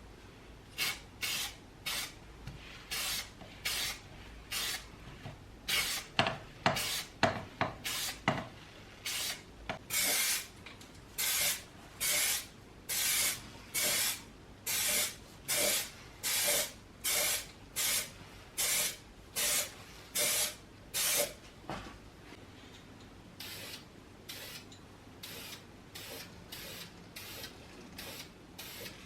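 A steady run of short, high-pitched hissing strokes, one or two a second, loudest in the middle and weaker near the end: hand work on a fan part, with each stroke a rub or a spray.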